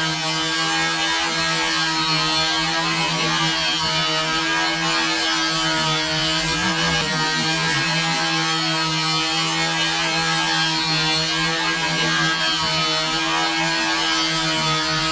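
Stationary locomotive running with a steady, unchanging hum at one constant pitch, over a hiss.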